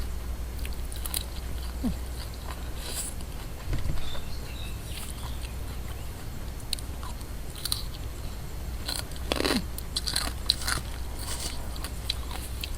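Close-up eating sounds: a person chewing, with scattered crisp crunches and wet mouth clicks, and a denser run of crunching about nine seconds in. A steady low hum sits underneath.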